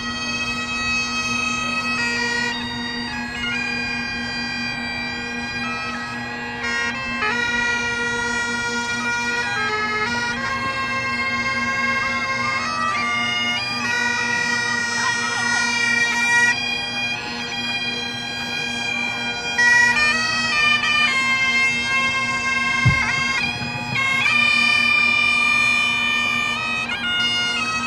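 Bagpipes playing a tune over a steady, unbroken drone.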